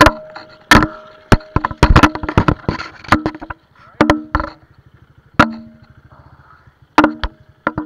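Irregular sharp knocks and clatters, a dozen or more, some with a brief ringing after them and coming further apart toward the end: a helmet action camera, torn loose in a crash, swinging on its tether and banging against the helmet and rider.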